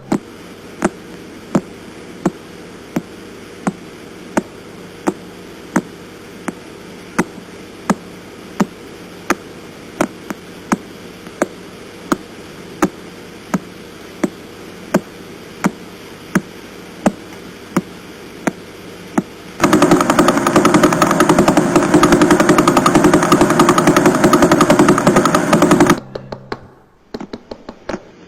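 Radio pulses of a pulsar converted to sound: sharp, regular ticks, about three every two seconds, like slow knocking over a steady hiss. About twenty seconds in a loud, dense rapid rattling noise takes over for some six seconds, then the slow ticking returns, quieter.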